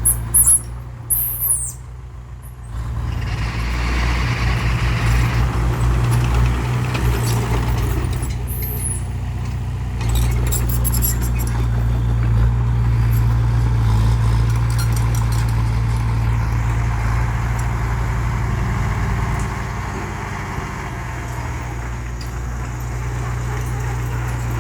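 Heavy diesel engine of a construction vehicle running steadily, with a couple of short, sharp air hisses in the first two seconds.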